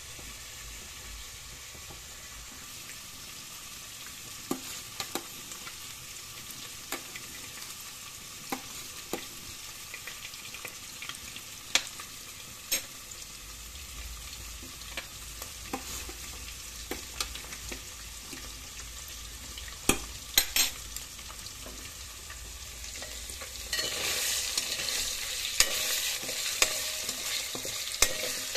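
Green peas boiling in water in a steel saucepan on a gas stove: a steady hiss with scattered sharp pops and clicks. Near the end it changes abruptly to a louder sizzle of paneer cubes frying in hot oil.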